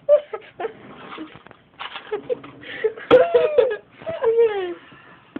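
Voices making wordless vocal sounds, short squeals and giggly noises, with a longer pitched cry about three seconds in and a drawn-out falling one about four seconds in.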